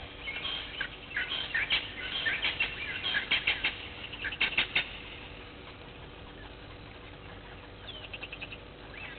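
A blacksmith lapwing bathing in a shallow pool: a rapid, irregular run of splashes and wing-flaps in the first half, then quieter, with a short quick burst of ticking splashes near the end.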